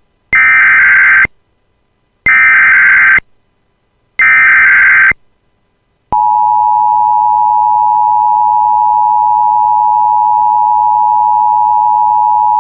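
Emergency Alert System SAME header: three loud bursts of digital data tones, each about a second long and about a second apart. About six seconds in, the steady two-tone EAS attention signal begins and holds.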